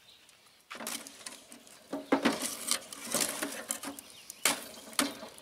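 An oak log being laid onto glowing coals in the steel firebox of an offset smoker, the coals pushed about with a stick: irregular scraping, rustling and knocking of wood against coals and metal, with two sharp knocks near the end.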